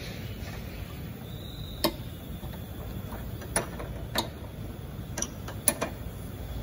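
Sharp metallic clinks and clicks of a spanner on a car's front suspension parts, about half a dozen at uneven intervals, over a steady low workshop hum.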